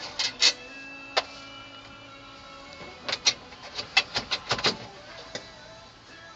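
Sharp clicks and taps of a screwdriver and screws against a pickup's dashboard trim, a few near the start, then a quick cluster about three to five seconds in.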